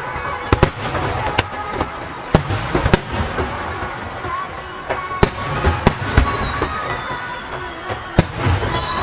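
Aerial firework shells bursting: about ten sharp bangs at uneven intervals over a steady rumble of the display, with people talking underneath.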